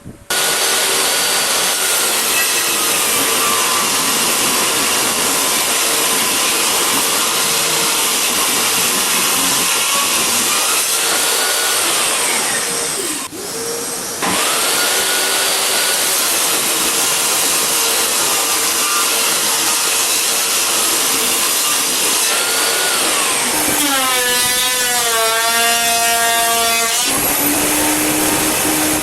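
Electric power tool cutting wood, its motor pitch sagging under load and recovering again and again. About halfway through it briefly runs down and then comes back on abruptly.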